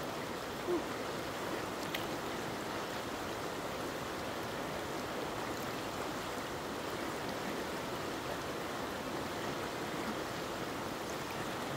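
Rushing stream water, a steady full rush, with one brief louder sound just under a second in.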